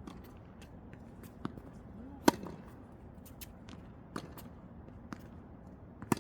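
Tennis balls struck by rackets in a rally drill: a sharp hit about two seconds in and another near the end, with quieter hits or bounces in between and shuffling footsteps on the court.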